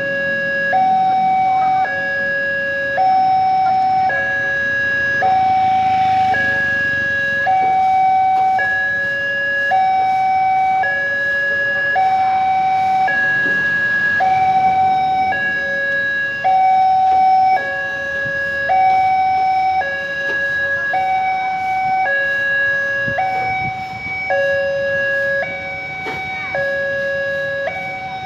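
Railway level-crossing warning alarm: an electronic two-tone signal switching between a higher and a lower note about once a second. It warns that a train is approaching while the crossing barriers come down.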